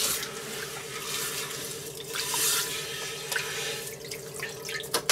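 Kitchen tap shut off right at the start, then a cast-iron Dutch oven lid scrubbed with a metal scrubbing pad in the sink: wet scraping, splashing and dripping, with a short splash about halfway and a sharp click near the end.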